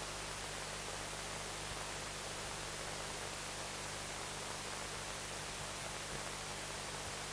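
Steady hiss with a low electrical hum: the noise floor of the microphone and sound system, with nothing else sounding.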